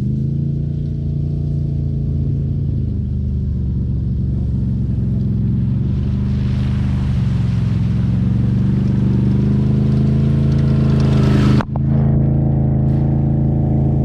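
Can-Am ATV V-twin engine running under way on a trail ride, a steady engine note. The noise swells in the middle of the stretch, then dips sharply for a moment near the end before the engine carries on.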